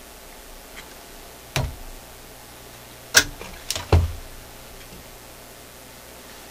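A few sharp clicks and knocks, four in about two and a half seconds, the last two with a dull thump, over a steady low hiss and hum: bench handling noise as meter test leads and clips are set up on the amplifier.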